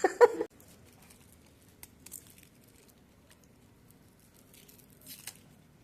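Quiet room tone with a few faint scattered clicks and rustles, after a brief spoken word at the very start.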